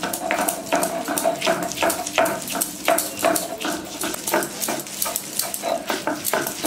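Chana dal being ground by hand on a grinding stone: rhythmic rasping, scraping strokes, about two or three a second.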